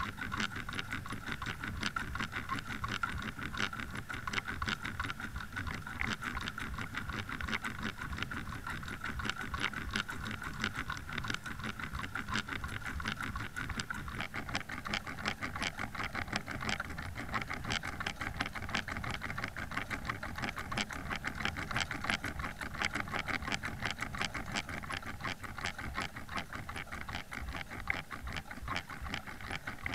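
Outboard motor of a trolling boat heard underwater: a dense, rapid ticking over a steady whine.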